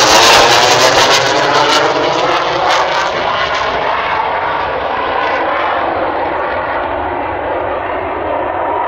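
F-16 fighter jet's engine roar fading as the jet climbs away after takeoff, losing its high hiss and growing duller and quieter over several seconds.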